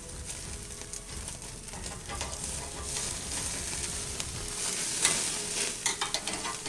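Roast beef sizzling and crackling on a hot gas-grill grate, with fat dripping into the burner and flaring up. A few sharper crackles and clicks stand out about five and six seconds in.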